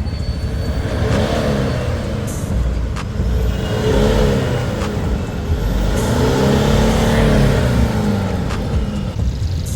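Toyota Fortuner's diesel engine being revved in short blips: its pitch rises and falls three times, the last one longer, over a steady low rumble.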